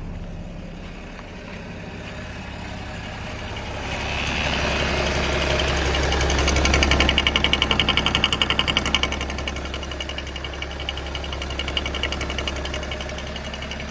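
BMW M57 diesel engine idling with a rapid, even knocking that grows louder about four seconds in, peaks a couple of seconds later and then settles. The owner attributes this knock to the vacuum pump, hears it only with the oil filler cap open, and considers it harmless.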